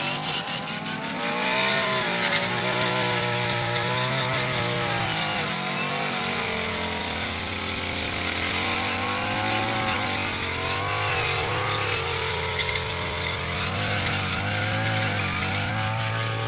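Petrol brush cutter running while cutting tall grass, its engine pitch rising and falling as the blade takes the load.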